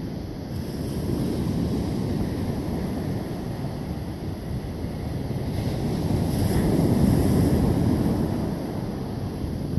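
Small ocean waves breaking and washing up a sandy beach, a steady surf rush that swells loudest about two-thirds of the way through, with wind rumbling on the microphone.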